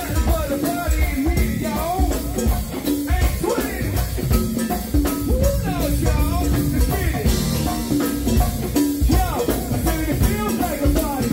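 Live go-go band playing at full volume: drum kit and percussion keep a steady beat under bass and electric guitar, while several vocalists sing into microphones.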